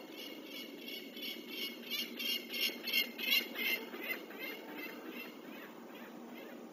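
A peregrine falcon's repeated harsh alarm calls, about three a second, swelling to their loudest about three seconds in and then fading, over a steady low background hum. The calls are the falcon's reaction to an owl at the nest site.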